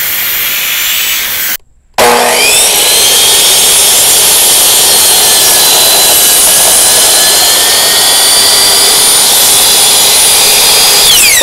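Electric power saw cutting wood to true up the edge of a glued-up block of old fence-post timber. After a brief stretch of running and a short break, the motor spins up with a rising whine, cuts steadily at full speed, and winds down with a falling whine near the end.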